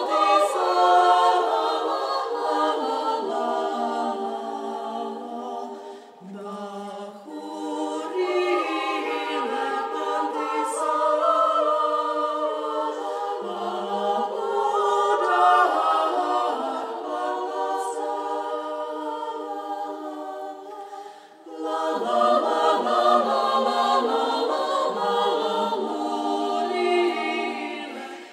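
Women's choir singing a cappella, several voices in harmony, with brief breaks between phrases about six and twenty-one seconds in.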